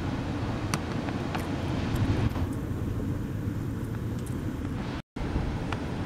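Steady low outdoor rumble of ocean surf and wind at the microphone, with a few faint clicks. The sound drops out for a moment about five seconds in.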